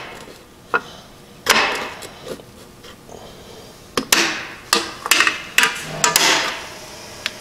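Brake spring pliers working a return spring onto the anchor post of a rear drum brake: irregular sharp metallic clicks and short scrapes of steel on steel, coming closer together in the second half.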